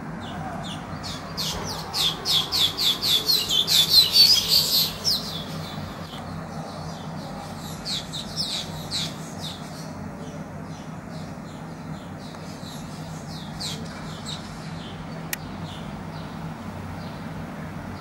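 Weaver birds chattering at their nest colony: a fast run of sharp, high calls, about four or five a second, building to its loudest about four seconds in, then scattered calls.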